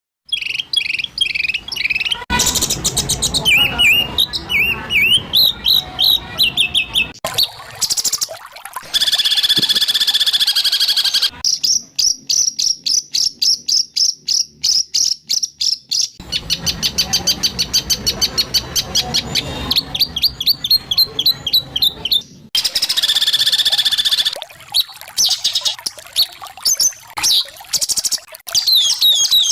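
White-rumped shama (murai batu) song: fast runs of harsh, rapidly repeated notes and whistled phrases. It comes in spliced segments that change abruptly several times.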